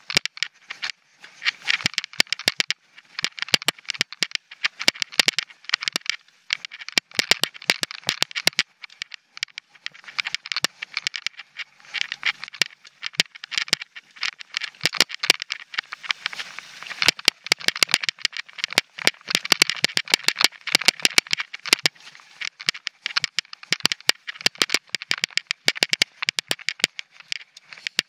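Mountain bike rattling and clattering over rock and loose dirt: rapid, irregular knocks and rattles from the bike, with a steady hiss of tyres on the trail.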